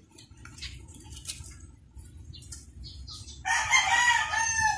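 A rooster crows once near the end, one call of a little over a second, after a few seconds of faint scattered ticks and rustles.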